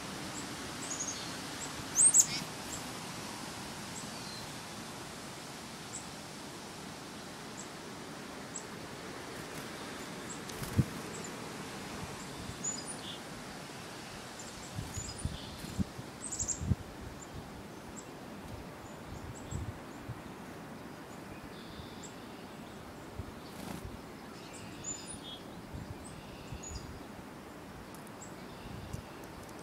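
Black-capped chickadees and tufted titmice giving short, high calls and chirps scattered throughout, loudest about two seconds in, over a steady outdoor hiss. A few soft low thumps come around the middle.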